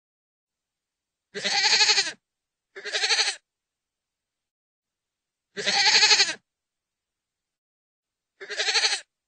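Goat bleating: four separate quavering calls, each less than a second long, with silence between them.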